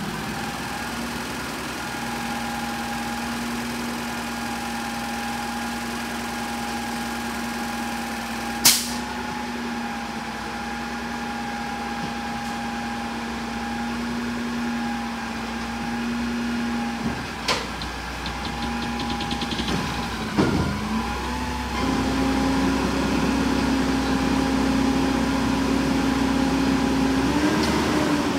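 Peterbilt 320 garbage truck's compressed-natural-gas engine running with a steady whine while the Heil front loader's forks work a dumpster. There is a sharp metal bang about a third of the way in and a lighter knock just past halfway. About three quarters in the pitch dips briefly, then the engine settles into a louder, higher-pitched run.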